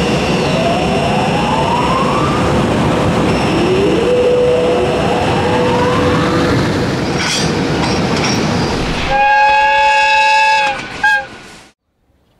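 EH500 electric locomotive hauling a container freight train across a steel river bridge: loud running rumble and wheel clatter with rising electric motor whines. A long horn blast follows about nine seconds in, then a short toot, and the sound cuts off abruptly.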